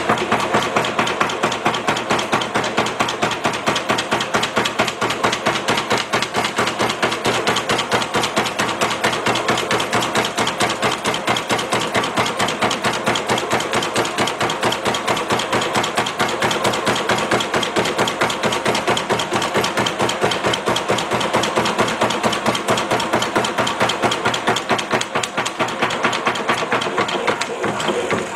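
Erco forming and flanging machine running, its reciprocating dies striking the edge of a 14-gauge steel sheet in a rapid, even stream of blows and stopping at the end. This is the finishing pass that turns a 1-inch flange to exactly 90 degrees.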